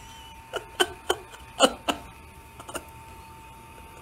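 A handful of short, sharp clicks and taps, about six of them, irregularly spaced within the first three seconds, over a faint steady hum.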